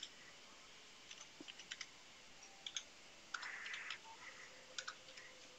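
Faint computer keyboard typing: scattered keystroke clicks, some in quick runs, with a short soft hiss in the middle.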